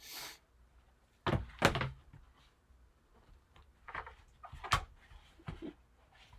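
Handling noise from a trading-card box on a tabletop: a short hiss at the start, then two sharp knocks, the loudest sounds, a little over a second in, followed by lighter knocks and rustling.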